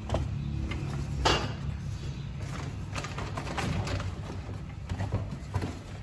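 Low steady hum with a few scattered clicks and knocks over it.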